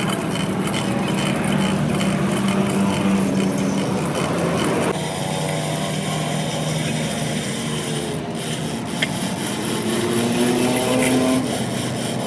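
Workshop tool noise: a continuous rasping, grinding sound with a low pitched hum, changing abruptly about five seconds in.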